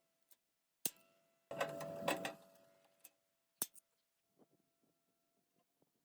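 Metal parts and tools knocking together: a few sharp clinks that leave a brief metallic ring, with a short rattling clatter about a second and a half in.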